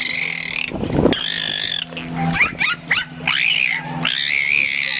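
An animal calling: a low grunt about a second in, then a run of short rising squeals, with a steady high warbling trill before and after them.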